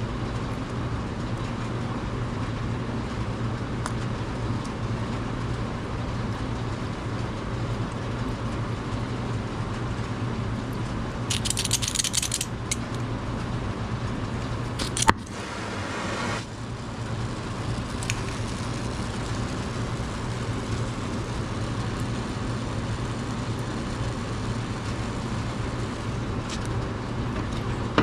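Steady low workshop hum with an even background noise, broken by a short high hiss about eleven seconds in and a single sharp click about fifteen seconds in, followed by a brief rustle.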